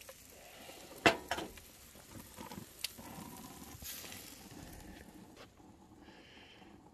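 Burgers sizzling on a gas grill over open flame, a steady hiss broken by a few sharp clicks and knocks, the loudest about a second in. The sizzling stops near the end.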